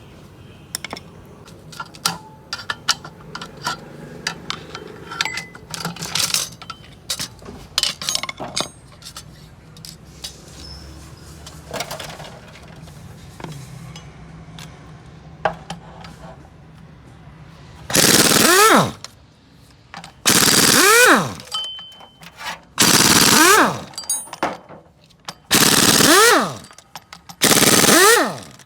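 Metal tools clink and tap on engine parts. From about two-thirds of the way in, a pneumatic impact wrench hammers in five loud bursts of about a second each, every two to three seconds, its pitch falling through each burst as it works bolts on the engine.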